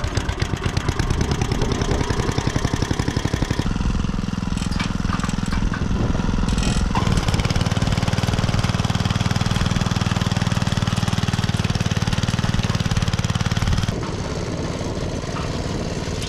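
Troy-Bilt Horse rear-tine tiller's small engine, running on a freshly replaced drive belt. It pulses evenly just after starting, then runs louder and steadier while the tiller works the soil, and goes on more quietly near the end.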